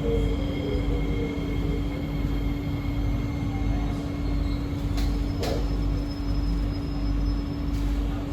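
Cabin noise of a C151B MRT train in motion: a steady rumble and hum, with a whine from the traction motors falling in pitch and fading during the first second. Two sharp clicks come about five seconds in.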